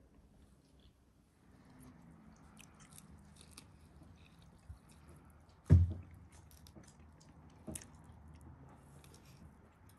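Eating roast lamb by hand: quiet chewing with small clicks as meat is pulled from the bone. There is one loud thump a little past halfway and a lighter knock about two seconds later.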